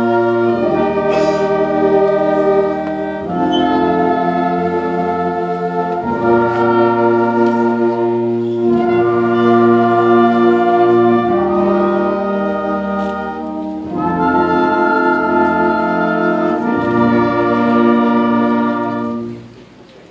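Middle school concert band with prominent brass playing a slow series of held chords, each lasting two to three seconds, before the band cuts off shortly before the end.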